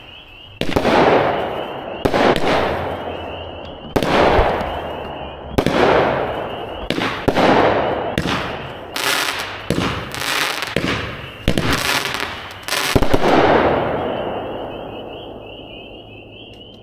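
A 19-shot, 200-gram consumer fireworks cake firing: sharp launches and aerial breaks about every one to two seconds, each fading over a second or so. The shots come thickest about nine to thirteen seconds in, and the last break near thirteen seconds fades away.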